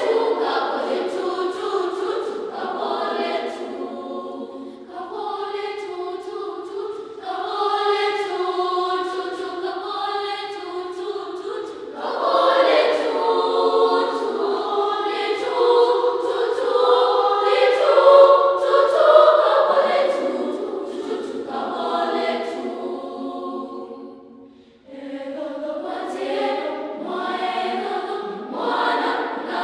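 School choir singing unaccompanied, phrase after phrase, with a short pause late on before the voices come back in.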